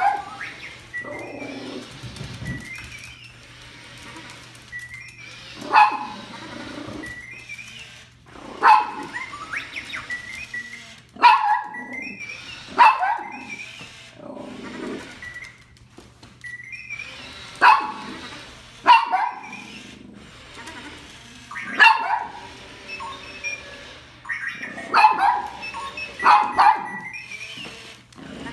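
Small white dog barking, a dozen or so sharp barks a few seconds apart, often two in quick succession, at an R2-D2 toy robot. The robot's short electronic chirps and whistles sound between the barks.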